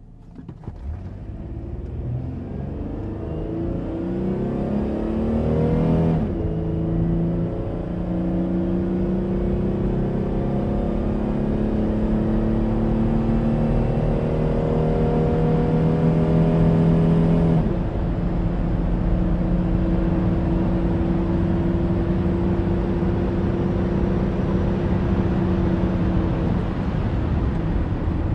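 Car engine and road rumble heard from inside the cabin as the car accelerates: the engine note climbs, drops sharply about six seconds in, climbs again slowly and drops once more around seventeen seconds, then holds steady at cruising speed. The drops are typical of upshifts.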